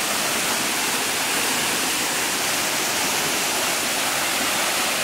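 Steady, even rush of water from a waterfall, with no breaks or changes.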